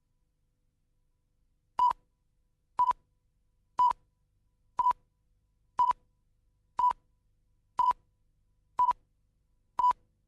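Nine short electronic beeps at a single high pitch, evenly spaced one a second, starting about two seconds in.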